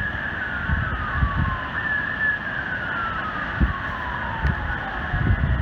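Steady rush of the Great Falls of Paterson, with a distant street siren over it. The siren's tone jumps up about two seconds in and then slowly slides down. A few low thumps come through as well.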